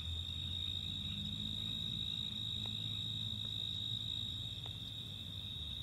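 Crickets trilling steadily on one unbroken high note, over a faint low hum.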